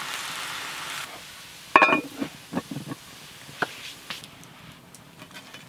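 A steady hiss that cuts off about a second in, then a sharp clank of cast iron with a brief ring, followed by several lighter knocks as the Dutch oven is handled.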